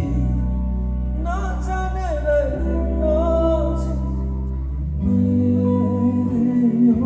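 Live band music: a voice sings a Nepali song over guitar and heavy bass. Near the end the bass drops out and a louder low note comes in.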